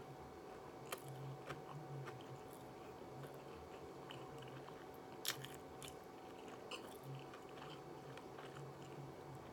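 A person chewing a mouthful of crispy shrimp tempura sushi roll with the mouth closed: faint, scattered crunches and clicks, over a faint steady hum.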